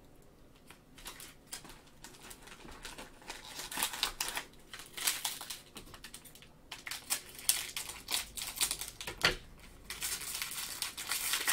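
Plastic cello pack of trading cards being handled and torn open: quick crinkling and rustling of the wrapper with small clicky snaps, starting about a second in, with one sharp snap near the end.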